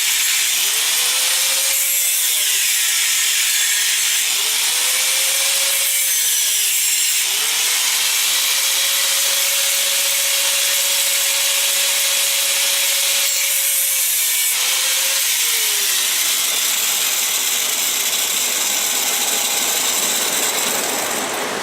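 Angle grinder with a thin cutoff disc cutting through the steel of a knife's frame lock: a steady loud hiss of the wheel on metal. A hum under it rises and falls in pitch three times, the third held for several seconds.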